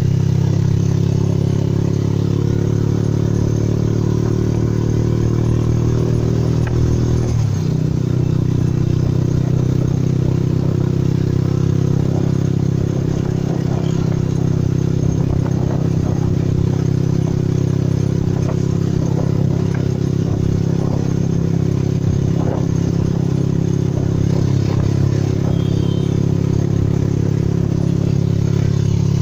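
Motorcycle engine of a passenger tricycle (motorcycle with sidecar) running steadily while riding, with the sidecar body rattling. The engine note shifts briefly about seven seconds in.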